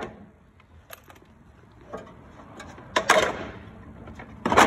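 Light metallic clicks and two loud clunks, about three seconds in and near the end, as the loosened steel crash-bar bracket behind the front bumper is worked free by hand.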